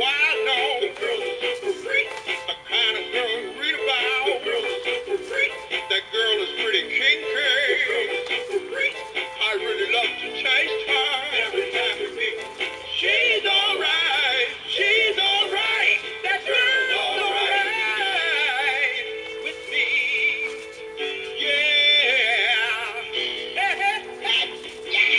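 Animated singing sock monkey toy playing its song through its small built-in speaker: a synthetic singing voice over music. The sound is thin, with no bass.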